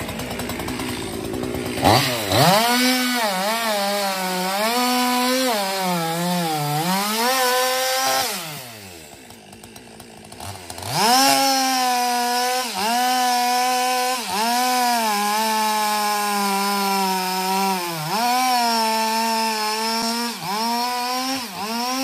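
Two-stroke chainsaw at full throttle cutting through a large felled tree trunk, its pitch sagging and recovering as the chain bites into the wood. About eight seconds in it drops back to idle, then revs up again a few seconds later and cuts on, with brief throttle dips.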